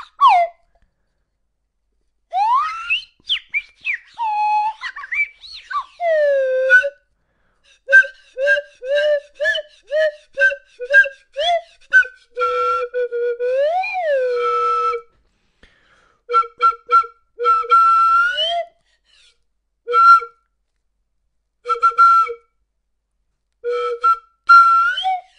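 A series of whistle-like notes: slides up and down at first, then short repeated notes at about two a second, with one longer rising-and-falling note about halfway through.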